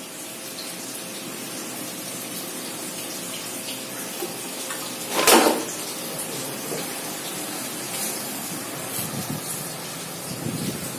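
Vertical engine head surface grinding machine standing switched on, with a steady hissing whir from its motors and hydraulic power pack. A single short, loud knock comes about halfway through.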